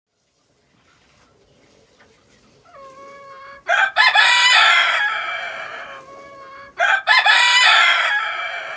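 A rooster crowing twice: two long, loud crows about three seconds apart, each trailing off at the end, the first opening with a quieter held note.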